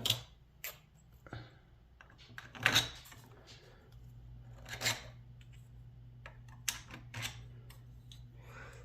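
Small 3D-printed plastic lock followers and their holder clicking and knocking as they are handled and slotted in. There are about half a dozen separate sharp clicks, the loudest about three seconds in.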